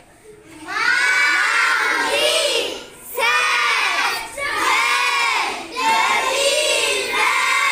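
A class of young children reading aloud together in a loud, drawn-out chant. There are four long phrases with short breaks between them.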